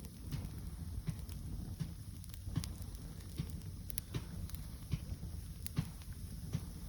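Open campfire crackling, with irregular sharp pops over a low steady rush.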